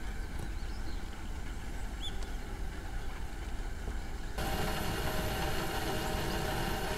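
Faint outdoor ambience: a steady low rumble with a light hiss and one short chirp about two seconds in. A little over four seconds in, the sound changes to a steadier, brighter hiss.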